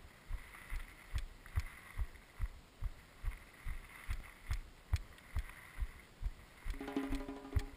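Background percussion music: a steady low drum beat, about two and a half beats a second, with pitched instruments coming in near the end.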